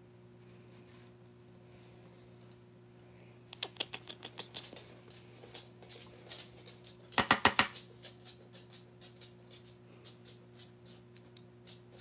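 Small clicks and taps of a makeup brush and eyeshadow palette being handled, with a quick run of about five sharp taps a little after seven seconds in and scattered faint ticks afterwards.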